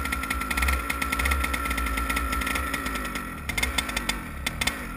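TKM BT82 100cc two-stroke kart engine running at idle, a steady rapid firing. It is not ticking over high enough because it is cold.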